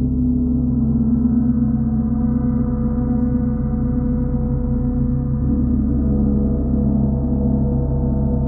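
Large hanging gongs sounding a sustained, low humming wash of many overlapping tones. Fresh tones swell in near the start and again about five and a half seconds in, with no sharp strike standing out.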